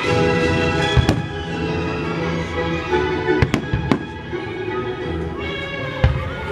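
Fireworks bursting with sharp bangs over orchestral music: a pair about a second in, three more between three and a half and four seconds, and another near the end, while the music plays on steadily.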